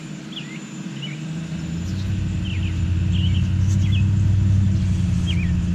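A low engine rumble that builds up over a few seconds and stays steady, with small birds chirping now and then.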